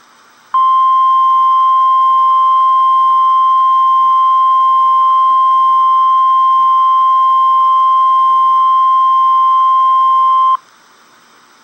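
Weather-radio emergency alert tone: a single steady, high pure tone held for about ten seconds, switching on about half a second in and cutting off sharply. It is the alarm that announces a flash flood warning about to be read out.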